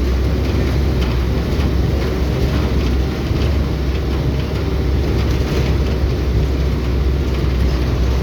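A vehicle driving: a steady low rumble of engine and road noise without letup.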